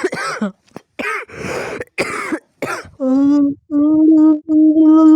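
A person's coughing fit of a smoker's cough: five short, rough coughs in quick succession. It is followed by three long, strained, wheezing breaths, each held on one steady pitch.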